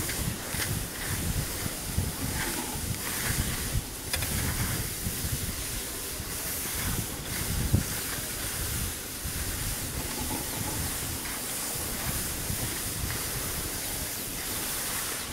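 Skis sliding over packed snow with a steady hiss while being towed uphill on a T-bar lift, with uneven wind rumble on the microphone.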